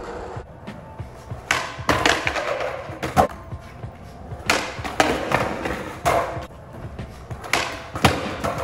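Skateboard wheels rolling on smooth concrete, broken by sharp clacks of the tail popping and the deck and wheels slapping down, in three bursts as 360 heelflip (laser flip) attempts are made.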